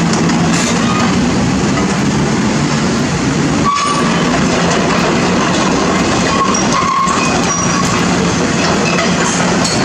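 Cat 320D excavator's six-cylinder diesel engine running steadily under working load, with its hydraulics driving the boom and bucket. Scattered metallic clanks and a few brief squeals, about four seconds in and around seven seconds in, come through the steady engine hum.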